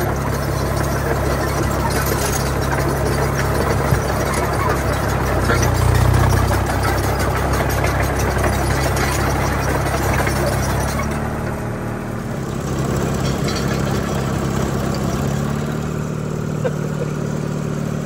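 Detroit Diesel 2-71 two-cylinder two-stroke diesel engine of an Allis-Chalmers HD5 crawler dozer running steadily as the machine moves. It swells louder briefly about six seconds in, and its note changes, losing some of its lowest rumble, around eleven to twelve seconds.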